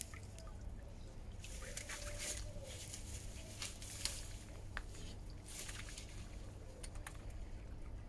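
Mute swan feeding at the water's edge: irregular small splashes, drips and clicks as its bill dips into the water and works among dead reeds. A faint steady low rumble lies underneath.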